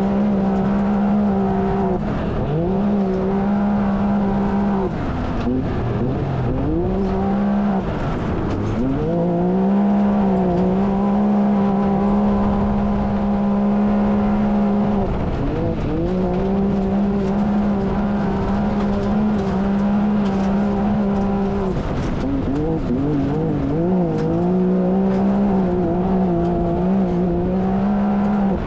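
Can-Am Maverick X3's turbocharged three-cylinder engine running hard at race pace. Its pitch is held level by the CVT for long stretches and dips briefly about five times as the throttle is lifted for corners.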